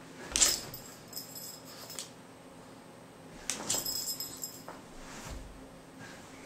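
Pug puppy scrambling about on rugs and a wood floor, its collar tags jingling in two bursts of about a second and a half each, the first opening with a sharp knock.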